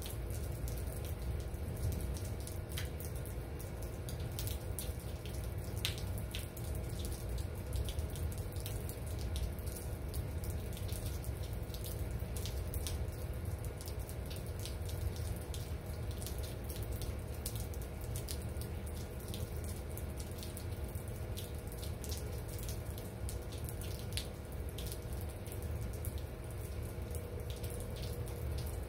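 Steady rain falling, with water running and dripping and many sharp drop ticks.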